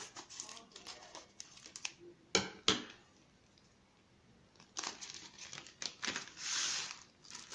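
Scissors snipping through a plastic mailing bag, with two sharp cuts about two and a half seconds in, then the plastic bag crinkling as it is opened and handled.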